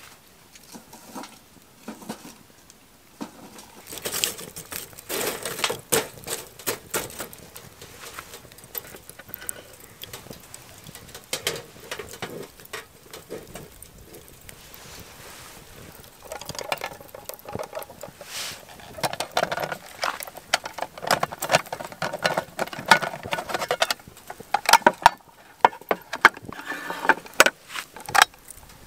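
Irregular clicks, taps and light clatter of camp cooking gear being handled, growing busier and louder in the second half.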